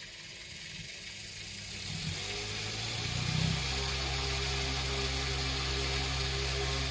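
Homemade belt-driven fan powered by three small electric motors, spinning up about two seconds in, then running at a steady whir with a low hum and a rushing hiss of air.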